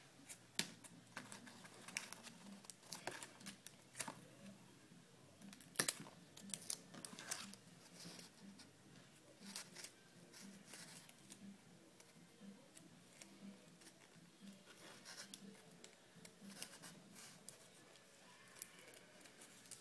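Faint, scattered rustling, crinkling and soft clicks of a rolled-paper origami spear being handled and folded.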